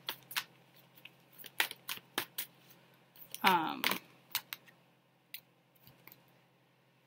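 Tarot cards being handled: a run of irregular light clicks and taps that thin out and stop near the end. A brief murmur of voice comes about three and a half seconds in.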